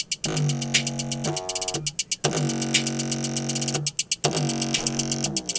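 A small bare speaker driver with vinegar on its cone plays an electronic beat: a held, buzzy synth bass note under fast hi-hat ticks, broken by a few short gaps.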